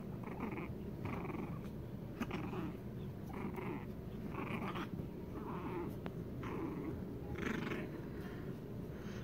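Pug puppy play-growling while tugging on a sock, in short repeated bursts over a low rumbling growl.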